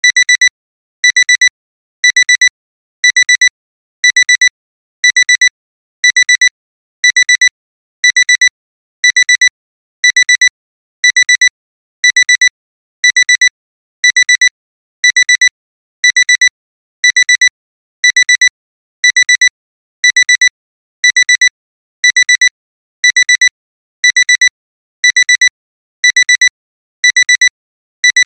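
Digital alarm clock beeper going off: a quick run of high-pitched electronic beeps repeated about once a second, without a break, signalling that the timer has finished.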